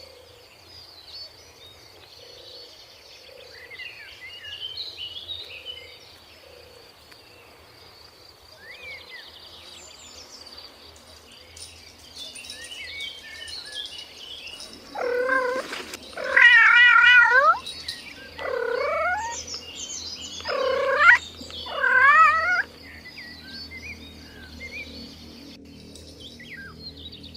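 A cat meowing five times in quick succession, loud drawn-out calls with a wavering pitch, starting a little past the middle.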